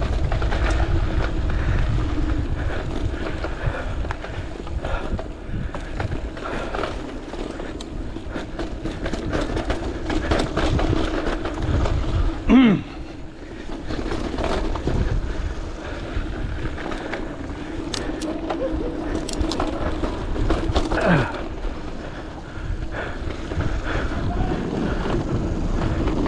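Mountain bike riding fast down a dirt trail: steady tyre and wind noise with frequent clicks and rattles from the bike over bumps, and a short falling tone twice, about halfway through and again a little later.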